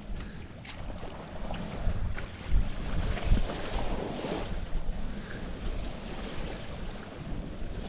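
Wind buffeting the microphone in irregular low gusts over the wash of the sea, which swells briefly about halfway through.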